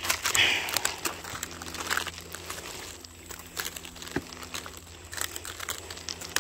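Footsteps crunching and crackling through dry logging slash, with dead sticks and twigs snapping underfoot in an irregular patter and a sharper snap about four seconds in.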